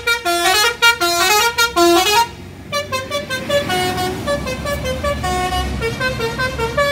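Multi-tone musical horn ("telolet" horn) of a Palala intercity coach playing a quick run of changing notes. It is loud for the first two seconds, then goes on more softly as the bus pulls away, over the low running of its engine.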